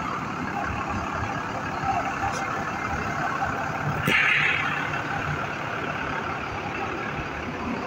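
Large coach buses running in a parking lot, a steady engine drone, with a sharp click and a short hiss of air about four seconds in.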